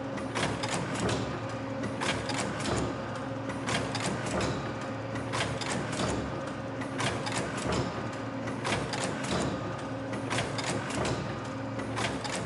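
Automatic leather weaving loom (I.M.E.C.A. TEL 183) running: dense, irregular mechanical clacking and clicking over a steady machine hum.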